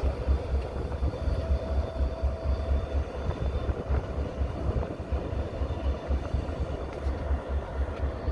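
A pair of Wheeling & Lake Erie diesel-electric locomotives moving slowly past at low speed, their engines giving a low, uneven throb.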